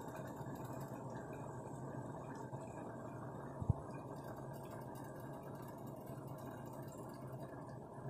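Steady low hum of kitchen room tone, with one short sharp knock a little over three and a half seconds in.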